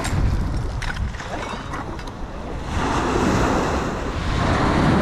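Sea waves washing in, with wind buffeting the microphone; a louder wash of surf comes about three seconds in.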